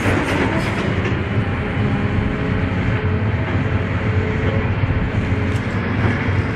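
Diesel engine of a crawler hydraulic excavator running steadily as it digs: a low, even drone.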